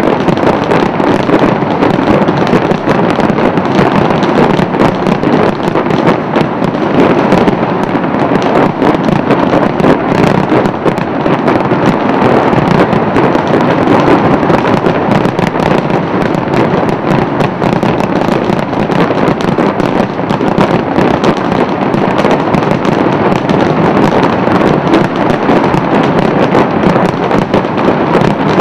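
Large fireworks display, very loud: a continuous barrage of overlapping bangs and crackles with no pause between bursts.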